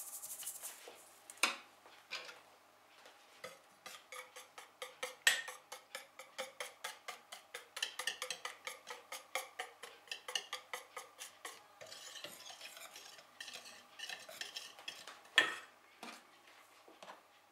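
Wire whisk stirring flour into chocolate batter in a stainless steel bowl, clinking against the bowl in quick even strokes about three a second. A few sharp knocks of metal on the bowl stand out, the loudest near the end.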